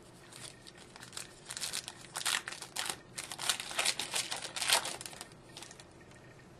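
Foil wrapper of a hockey card pack crinkling as it is torn open and the cards are pulled out: a run of quick, fine crackles from about a second in until about five seconds in.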